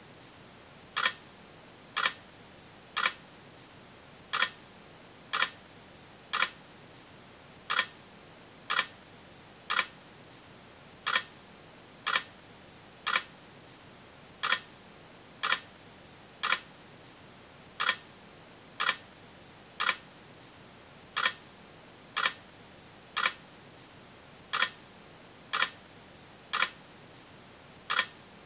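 Sharp clicks repeating about once a second in groups of three, with a slightly longer pause after each third click.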